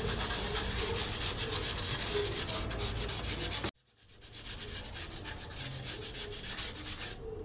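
Rapid, even back-and-forth rubbing strokes, like sanding a styrofoam shape by hand. The strokes cut out suddenly a little past halfway and then start again more quietly.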